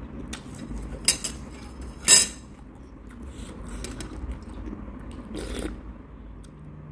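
Metal chopsticks and a spoon clinking and scraping against a ceramic bowl. There are two sharp clinks about a second and two seconds in, the second the loudest, and more clatter near the end.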